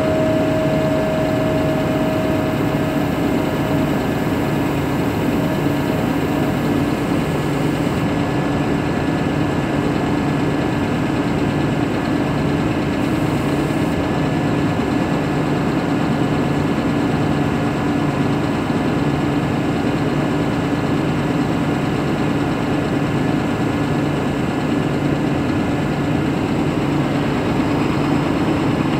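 Scania P420LB sludge vacuum truck running steadily while parked, a constant engine hum that does not change over the whole stretch.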